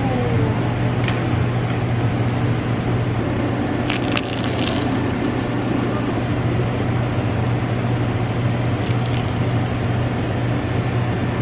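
Flaky ham and cheese pastry crackling as it is bitten and chewed, a few short crackles, the clearest about four seconds in. Underneath runs a steady low hum with an even hiss.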